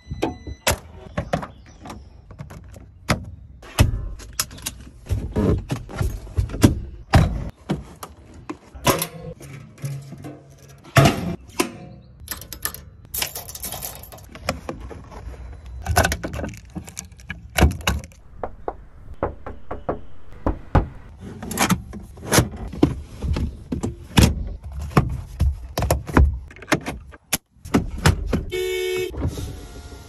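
A rapid series of clicks, latches and thunks from a Force Gurkha SUV's bonnet, key-locked fuel-filler lid and other body hardware being worked by hand, with a short pitched tone near the end.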